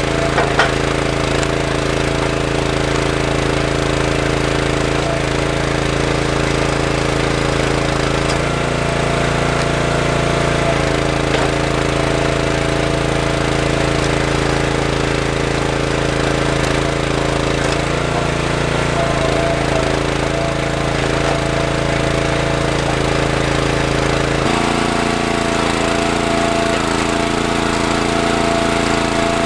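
Small gas engine of a County Line 40-ton log splitter running steadily. Its note shifts several times, about eight, eleven, nineteen and twenty-four seconds in, as the splitter works.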